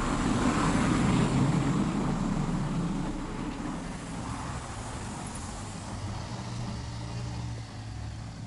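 A car driving along a road: steady engine and tyre noise that slowly grows quieter.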